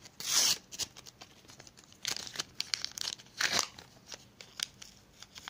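Paper sticker-pack wrapper being torn open and crinkled, in three short ripping bursts: the loudest about half a second in, others at about two and three and a half seconds, with light rustling and handling of the stickers between.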